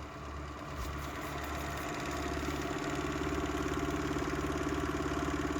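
3D-printed magnet rotor of a pulse motor spinning fast, driven by a coil and a Bedini circuit: a steady, pulsing scream that grows louder over the first two seconds and then holds.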